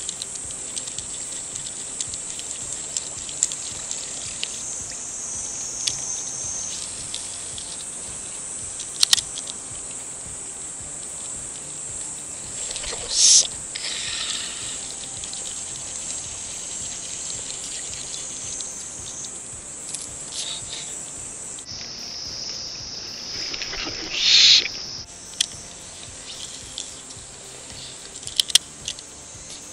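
Summer cicadas droning steadily at a high pitch, the chorus dropping somewhat in pitch a little past the middle. Two brief louder swishes, about 13 and 24 seconds in, and a few light ticks.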